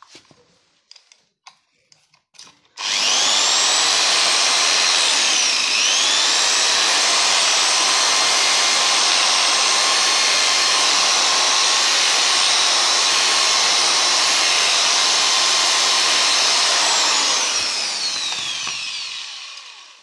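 A few light clicks, then a corded electric drill starts up and runs steadily while enlarging a hole in a strip from an old pressure cooker. Its whine dips briefly a few seconds in as the bit bites, then holds steady. Near the end the trigger is released and it winds down with a falling whine.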